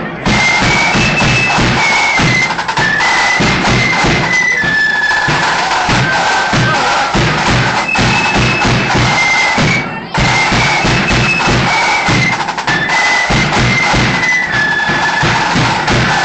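Marching flute band playing: a high flute melody over rapid snare drumming and steady bass drum beats, with a brief break about ten seconds in before the tune carries on.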